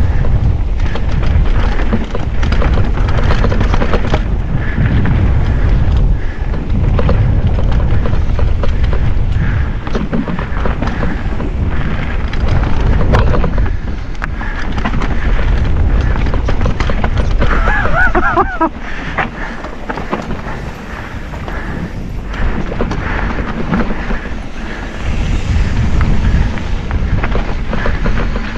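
Wind buffeting an action camera's microphone over the rumble and rattle of a mountain bike descending a rough enduro trail. There is a short pitched squeal about 18 seconds in.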